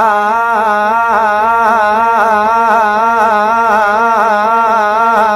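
A man's voice singing on an open 'aa' (akaar), alternating quickly and evenly between two neighbouring notes, dha and pa, in a gamak-like riyaz pattern. It is sung over a steady harmonium drone.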